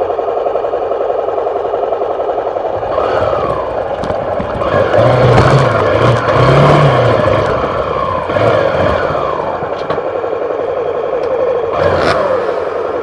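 Off-road trail motorcycle engine running while riding, its pitch rising and falling several times as the rider works the throttle, loudest about five to seven seconds in.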